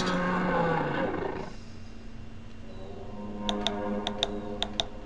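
A Halloween prop controller's triggered sound-effect track, an animal roar, plays through a small speaker and dies away within about a second and a half. About three and a half seconds in come three quick press-and-release clicks of the board's small tactile trigger button, pressed while the trigger is locked out by the timer delay.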